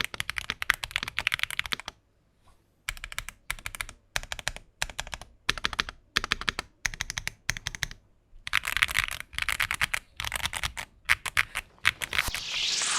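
Mechanical keyboard with Wuque Studio WS Brown tactile switches being typed on: fast runs of keystroke clicks in bursts with short pauses, and a gap of about a second early on. Near the end a rising whoosh sound effect comes in.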